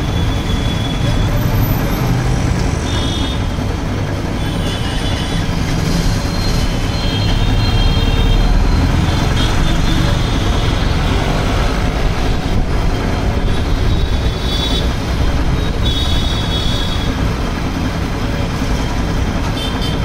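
Belt-driven single-piston air compressor with a 0.5 hp Crompton single-phase motor running steadily.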